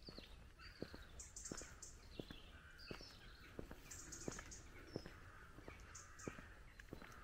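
Faint, steady footsteps of someone walking along a village lane, about three steps every two seconds, with several birds singing and calling in high chirps and trills over them.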